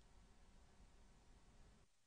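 Near silence: faint recording hiss between spoken words.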